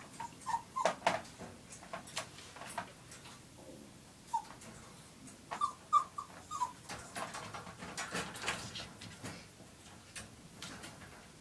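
Chihuahua whimpering in short, high squeaks, a few at a time, among scattered sharp clicks and scrapes.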